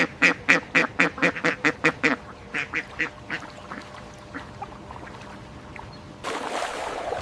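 Duck quacking in a rapid run of short calls, about four a second, that slows and fades out over the first few seconds. Near the end, a steady rushing noise comes in.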